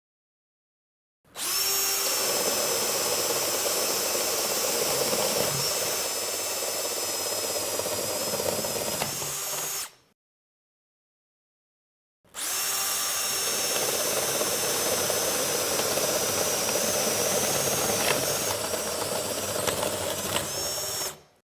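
Power drill boring holes in wood with an Irwin 4X flat (spade) bit: two runs of about nine seconds each, separated by a silent gap. Each run is a steady motor whine, joined about a second after it starts by the rougher sound of the bit cutting the timber.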